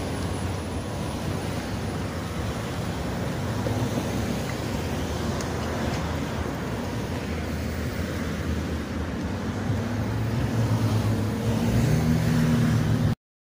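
Freight train rolling away into the distance: a steady low rumble with an engine drone that grows louder and rises in pitch over the last few seconds, then cuts off suddenly.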